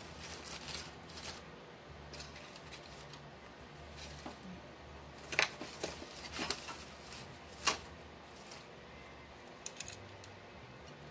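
Light handling noises of a small 3D-printed plastic part being moved over the plastic box: a few short, sharp clicks and scrapes, the clearest about halfway through, over a faint low steady hum.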